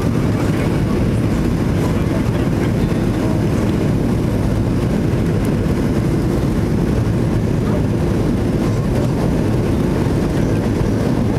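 Steady cabin noise inside a Boeing 737-800 on final approach with flaps extended: a deep, even rumble of its CFM56 engines and the airflow over the wing and fuselage.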